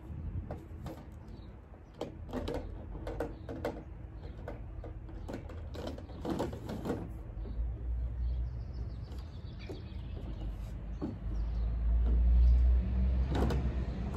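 Scattered knocks and clatters of plastic playhouse panels being handled and fitted together, thickest in the first half. A low rumble swells in the second half.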